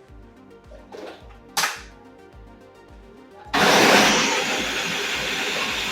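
A sharp knock about a second and a half in, then about three and a half seconds in a loud, steady sizzle starts suddenly as food goes into a hot pot over an outdoor cooking fire. Background music with a steady beat plays underneath.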